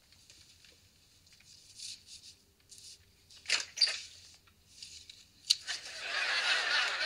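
Faint rustling and small scratches, then about halfway through two sharp clacks as a door's latch and handle are worked and the door swings open. A sharp click follows, then studio audience laughter swells near the end.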